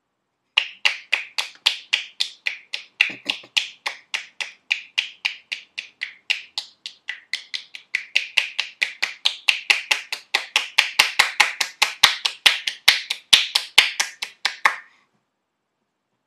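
A long, even run of sharp clicks made by a person's body, about five a second, getting louder in the second half and stopping suddenly near the end.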